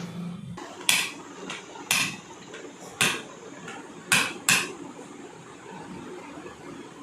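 Five sharp knocks, about one a second, with the last two coming close together.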